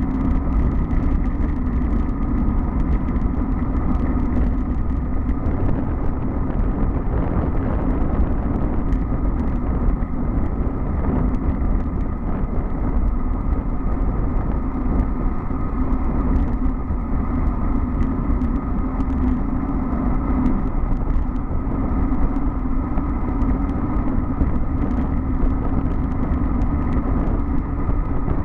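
Steady wind rush and road rumble on a bicycle-mounted camera's microphone during a fast road-bike descent, with tyre hum on the asphalt and occasional small clicks and rattles from bumps.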